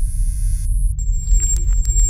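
Low, steady electronic rumbling drone of an intro sound bed; a high hiss over it cuts off suddenly about a second in, and a faint steady tone with a few soft clicks comes in after.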